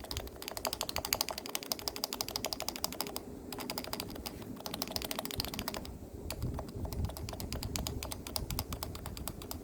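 Keys on a stock, unlubricated Topre Type Heaven keyboard with electrostatic capacitive rubber-dome switches being typed fast, a dense run of keystrokes with two short pauses.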